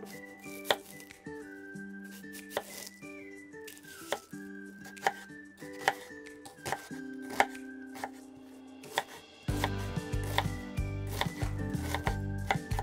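Kitchen knife coarsely chopping an onion on a bamboo cutting board: separate sharp knocks of the blade on the board at irregular intervals, coming faster near the end. Background music plays under it and gets louder with a beat near the end.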